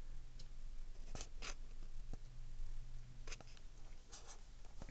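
A cat clawing and batting at clothes: a series of short scratchy rustles, about five or six, in two clusters.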